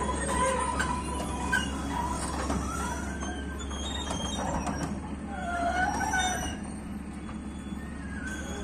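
Komatsu PC200 amphibious excavator running as it crawls on its pontoon tracks along a lowboy trailer bed, with scattered clanks from the track links. A squeal wavers up and down a little past the middle.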